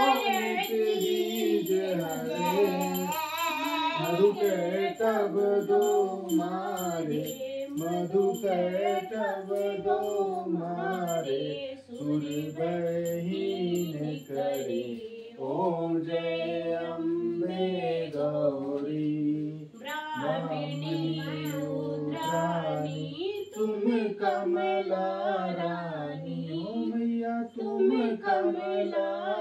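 Devotional song: singing with music and a steady low drone underneath. A high ringing with quick ticks sounds through about the first half, then stops.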